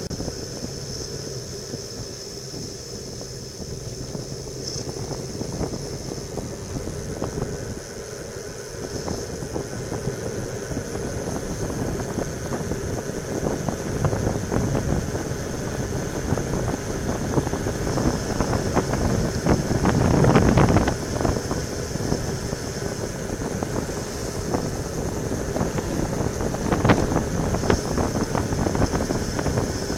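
Wind rushing over a bike-mounted camera's microphone, mixed with tyre noise on asphalt, during a fast road-bike descent; it grows louder as the speed rises, with a loud gust of buffeting about two-thirds of the way through.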